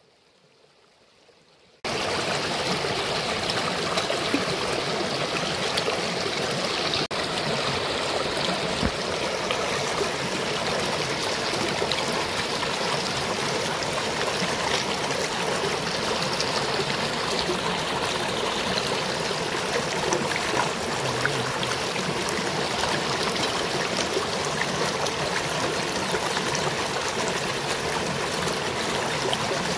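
Shallow rocky river rushing over stones and a small fall, a steady even noise that cuts in suddenly about two seconds in after near silence.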